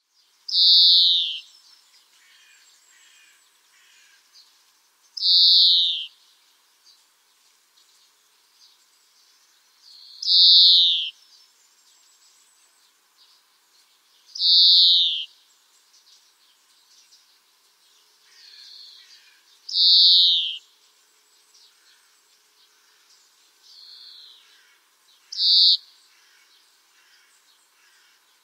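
A single bird calling: one sharp, high note that slides down in pitch, repeated six times about every five seconds. Fainter, similar calls come between them.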